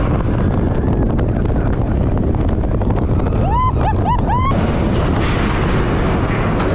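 Expedition Everest steel roller coaster train running along the track at speed, a steady loud rumble with wind buffeting the microphone. A little past the middle, four short high-pitched cries rise and fall in quick succession, then a sharp click.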